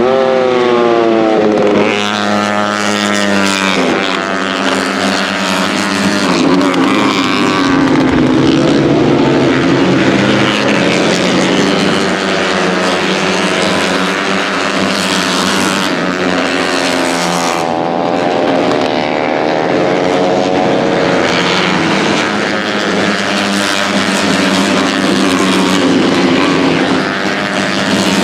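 Several KTM RC250RBR race bikes, 250cc single-cylinder four-strokes, run hard at racing speed, their engine notes overlapping as they rise and fall through the gears and slide in pitch as the bikes pass one after another.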